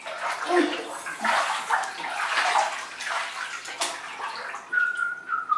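Bathwater splashing and sloshing as children move about in a filled bathtub. A thin, high whistle-like tone starts near the end.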